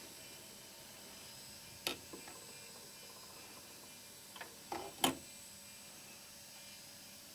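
Faint surface noise of a turntable stylus riding a vinyl single: a steady soft hiss with a few sharp clicks, one about two seconds in and a small cluster near the middle, the last of them the loudest.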